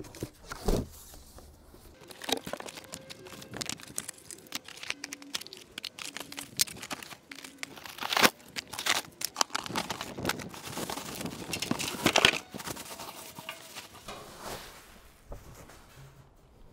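Cardboard shipping box being opened and unpacked by hand: flaps and cardboard inserts rustling and scraping, plastic wrapping crinkling, with scattered knocks. It is busiest in the middle.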